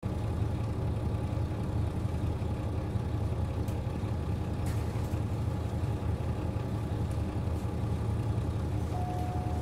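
JR Hokkaido KiHa 40 diesel railcar idling while standing, a steady low engine hum. Near the end a steady high beeping tone starts.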